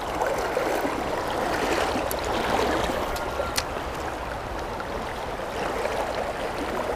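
Shallow river current rushing steadily over stones and weed beds around the wading angler. Two brief clicks about two and three and a half seconds in.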